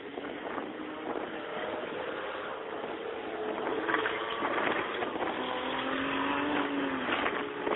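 Racing truck's diesel engine running hard through a corner on a wet track, getting louder as it nears, with the engine note rising and falling and the hiss of tyre spray under it.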